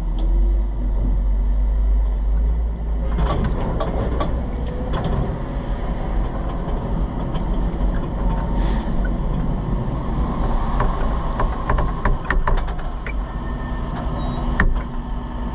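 Pierce tiller ladder fire truck running, with a steady low rumble and frequent rattles and clicks, and a short hiss about nine seconds in.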